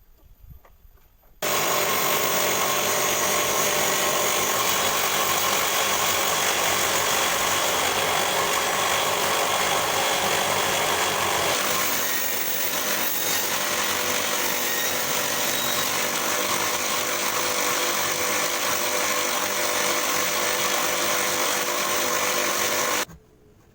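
Self-assembled table saw running and sawing wood, a loud steady whine and rasp. It starts abruptly about a second and a half in, changes tone about halfway through, and stops abruptly near the end.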